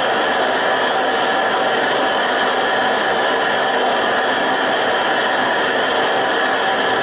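Gas forge burner running steadily: a constant, even rush of flame noise with a faint hum in it.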